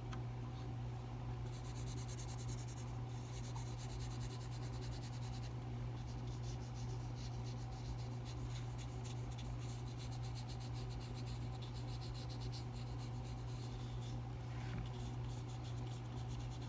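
Watercolor brush stroking paint onto thick watercolor paper, soft irregular scratchy rubbing strokes, over a steady low hum.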